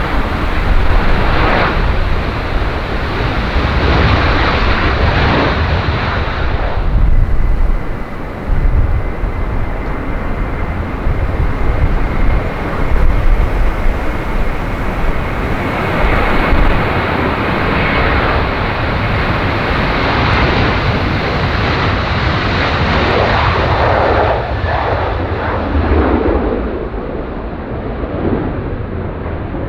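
Jet airliner's engines running loud and steady as it passes on a landing or take-off, with a faint steady whine over the roar. Strong wind buffets the microphone throughout.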